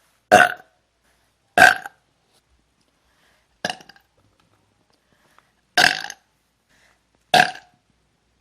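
A woman burping five times, short burps spaced about one and a half to two seconds apart, the third one softer than the rest.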